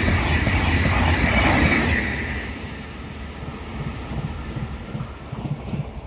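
A TGV inOui double-deck high-speed train passing at speed. The rush of wheels and air is loud for about two seconds as the last cars go by, then fades away as the train recedes.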